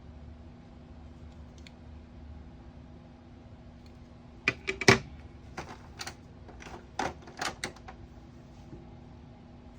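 Sharp tapping clicks from a Snap Circuits clap-sound circuit set up as a 'machine gun sound', about a dozen in an uneven cluster starting a little before halfway and ending about three-quarters through, over a steady low hum.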